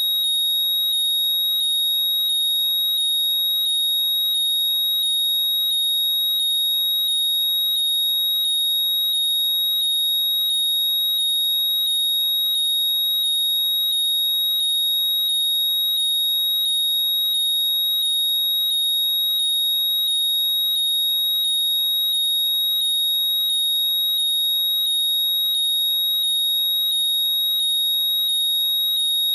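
AirPods 'Find My' locate sound: a loud, high-pitched electronic chirping, a steady high tone with a rising chirp repeated about every 0.7 seconds, without a break.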